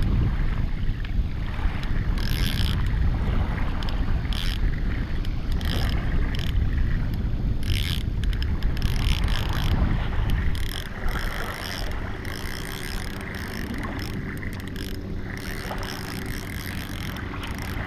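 Wind buffeting the microphone with a heavy rumble, broken by scattered short crackles; the wind eases about ten seconds in.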